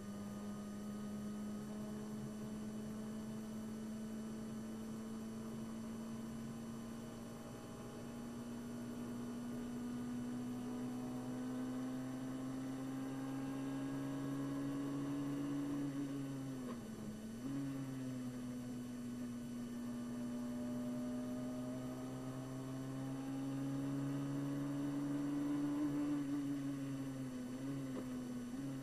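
Onboard sound of a Brabham BT21 historic Formula 3 car's one-litre racing engine at high revs, its note climbing steadily. About two thirds of the way through it drops sharply and recovers at a gear change, then climbs again before falling near the end as the car slows for a corner.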